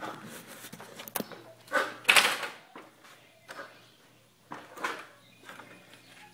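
Knocks, clicks and scuffs of footsteps and of the phone being handled while coming down a wooden ladder and walking across a bare concrete floor, with two louder rough noises about two seconds in and another near five seconds.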